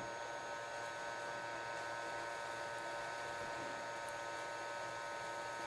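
Hot-air rework station blowing steadily, a even hiss with a steady fan hum, as it heats a TV mainboard's CPU IC to melt the solder under it.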